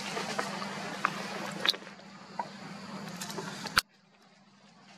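Outdoor background noise over a steady low hum, with a few small clicks and taps. A sharp click comes near the end, and after it the background drops away almost to quiet.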